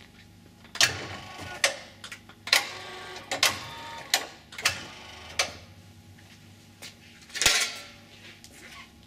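Sharp metallic clanks with a brief ring, about eight at irregular spacing, the loudest near the end, from sheet steel being handled at a motorised sheet-metal folding machine. A faint low hum runs under the middle stretch.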